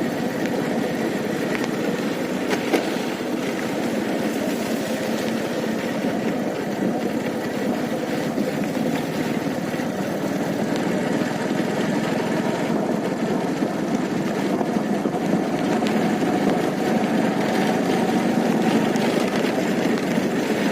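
A vehicle engine running steadily, with a slight rise in level near the end.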